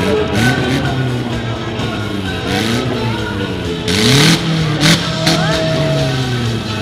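Demolition derby compact cars' engines revving up and down repeatedly, with a few short harsh bursts of noise near the middle.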